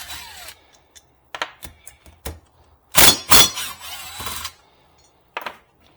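Tools and metal parts being handled and set down: a run of separate clanks and knocks, with the loudest cluster about three seconds in trailing into a rattle that lasts about a second, and one more knock near the end.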